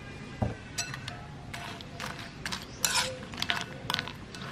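Metal spoon clinking and scraping in a ceramic bowl of granola, milk and ice cubes: a dull knock about half a second in, then a string of sharp, ringing clinks.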